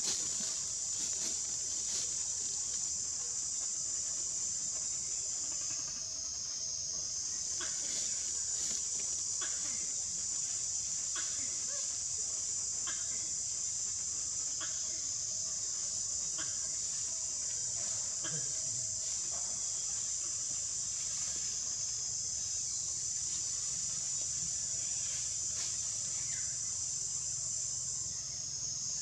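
Steady high-pitched drone of an insect chorus in tropical forest, with a run of faint clicks about once a second through the middle.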